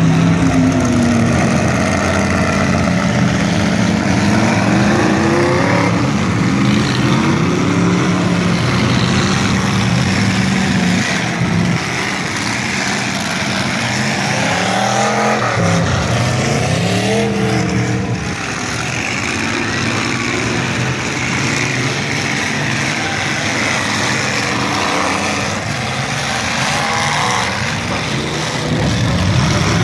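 Demolition derby car engines revving and running hard as the cars drive through the mud, their pitch rising and falling again and again.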